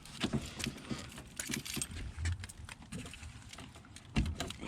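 Irregular light clicks and taps of hands working at a car's plastic electrical connector, with a dull knock about four seconds in.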